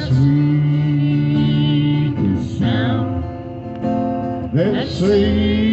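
Live acoustic gospel music: a man sings three long held notes that scoop up into pitch, over a strummed acoustic guitar.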